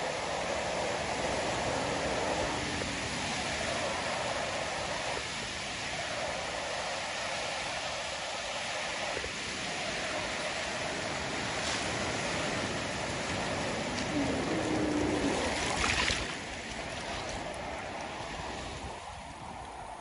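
Sea surf breaking and shallow water washing over reef rocks: a steady rushing noise that eases off a little near the end.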